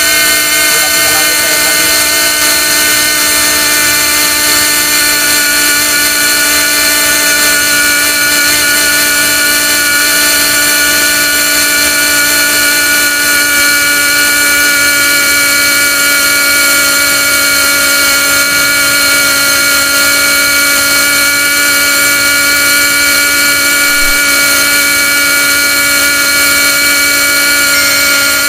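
Air-driven pilot-ladder winch running steadily as it heaves up the combination ladder: a loud machine whine made of several steady tones that hold unchanged throughout.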